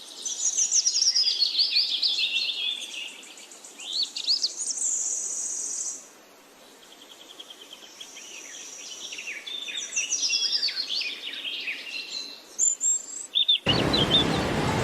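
Several wild songbirds singing and chirping at once: quick, high whistled notes that slide downward and loop, with a thin steady high tone in places. Near the end the birdsong cuts abruptly to a loud, even rushing noise.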